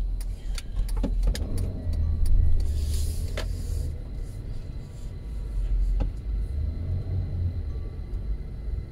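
A van being driven, with a steady low rumble of engine and road noise inside the cabin, a few scattered clicks, and a brief hiss about three seconds in.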